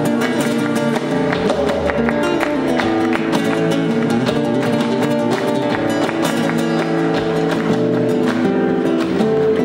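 Flamenco guitar playing live: a quick, steady stream of picked notes and strums.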